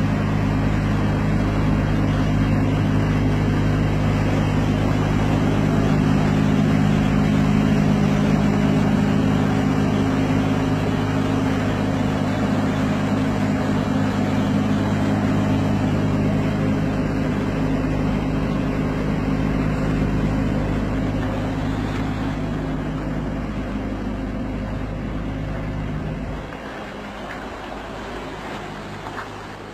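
Diesel engine of an articulated lorry running at a steady low speed as the truck creeps through a tight turn. The engine note drops away and fades near the end as the truck pulls off.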